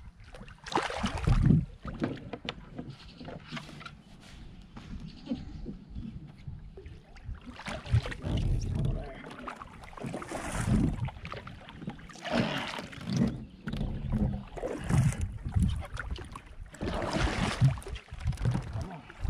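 Kayak paddle strokes splashing in the river water, coming in uneven bursts every couple of seconds over a low rumble.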